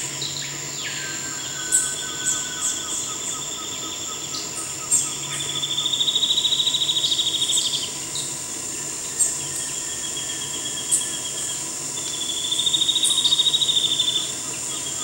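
Spot-winged antbird singing: a fast trill of high, evenly spaced notes that swells and rises slightly, given loudly twice for about two seconds each, with fainter trills between. A steady high insect drone runs underneath, and short sharp bird chips break in now and then.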